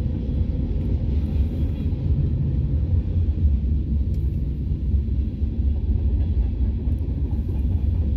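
Norfolk Southern freight train's cars, covered hoppers and boxcars, rolling past: a steady low rumble of steel wheels on the rails, heard from inside a car.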